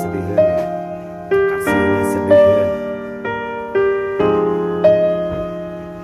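Slow, gentle piano music: single melody notes over sustained chords, a new note struck about once a second and left to fade.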